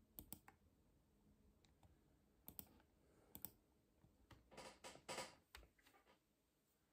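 A person's quiet hiccups: short, sudden clicks from the throat, a few at irregular spacing with a small cluster of them about two thirds of the way through.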